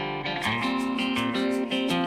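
Background music led by a guitar, with a steady beat coming in about half a second in.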